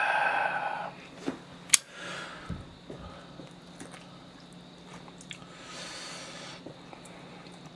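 Eating sounds from a mukbang: a brief vocal sound at the start, then a couple of sharp clicks and soft wet rustling as wooden chopsticks pick spicy-sauced noodles and vegetables out of a plastic tray.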